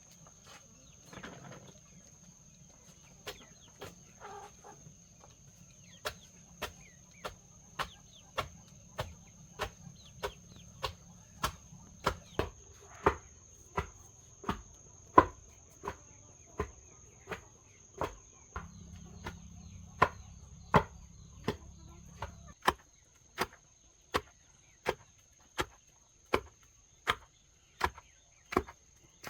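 Steady chopping knocks on wood, about three every two seconds, getting louder from about six seconds in. A cricket trills steadily behind them, and a hen clucks briefly near the start.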